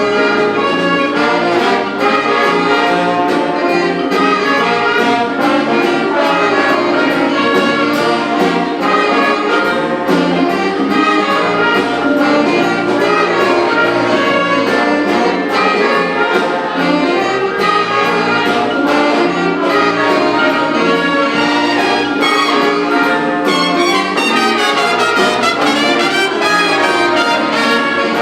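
Big band jazz ensemble playing a loud brass-led passage, trumpets and trombones together over a steady cymbal beat.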